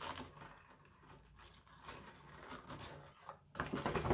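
Faint rustling as a ribbon is untied from a paper gift bag's rope handles, then louder crinkling of paper from about three and a half seconds in as the bag is pulled open.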